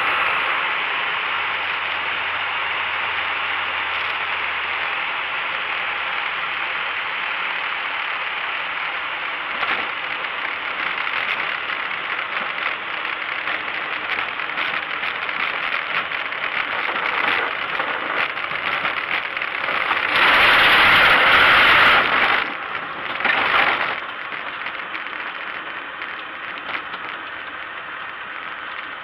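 Cockpit noise of an MCR01 light aircraft rolling out after landing, its engine and propeller running steadily at low power. About twenty seconds in there is a loud rattling shudder lasting about two seconds, then a shorter one: the nose wheel shimmying.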